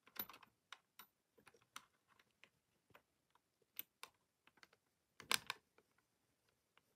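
Scattered small clicks and ticks of fingers handling a Sony Walkman WM-BF44's cassette mechanism while fitting a rubber drive belt over the brass flywheel and motor pulley, with a louder short clatter about five seconds in.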